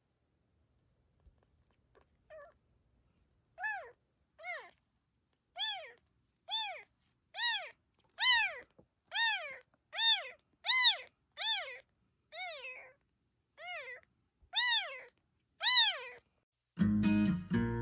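Tiny calico kitten meowing over and over: high, thin cries that rise and fall in pitch, about one a second, growing louder. Strummed acoustic guitar music comes in near the end.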